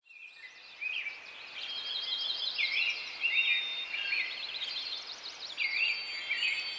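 Several songbirds singing at once, a mix of repeated chirps, whistled notes and trills over a faint steady hiss, fading in at the start.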